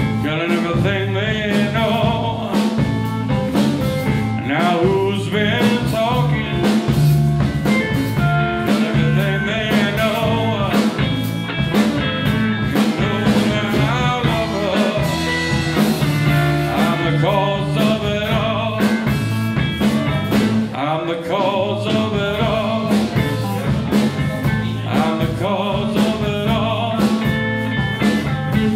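Live blues band playing: electric guitar with bending lead notes over bass guitar, drums and shaker.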